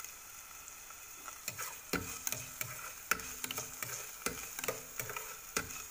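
Sliced onion and garlic sizzling in hot oil in a metal pot at medium heat, sautéing toward golden brown. From about a second and a half in, a utensil scrapes and knocks against the pot as they are stirred, about two or three strokes a second.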